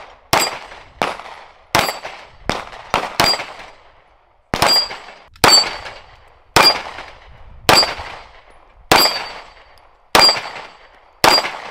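Pistol shots fired one at a time about a second apart, with a quick pair around three seconds in, about a dozen in all. Most shots are followed by the short high ring of a hit steel plate target.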